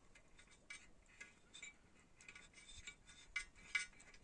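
Light, irregular metallic clicks and ticks, several a second, of a steel nut being handled and threaded by hand onto a motorcycle cylinder-head stud.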